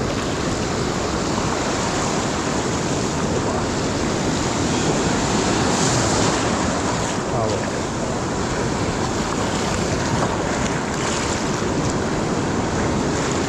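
Sea surf breaking and washing over a rocky shoreline, a steady rush of foaming water that swells louder about six seconds in as a wave breaks close by.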